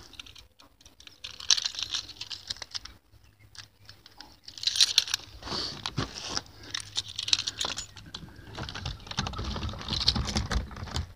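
Footsteps crunching over rough ground, mixed with irregular clicks and rustling from handling the phone while walking.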